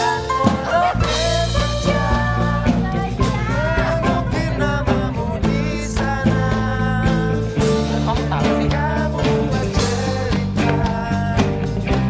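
A pop song playing: a singer over a band with a steady beat.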